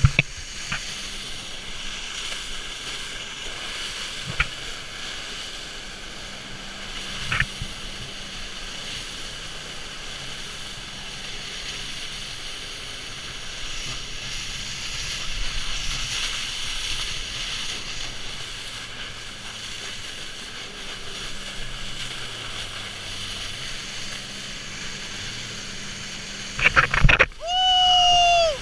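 Jet ski running at speed, its engine under a steady rush of wind and spray on the microphone, with a few sharp knocks as the hull hits waves. Near the end a man gives one long, loud shout.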